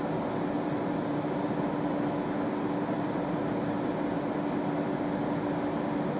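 Steady background hum and hiss with one constant low tone, unchanging throughout.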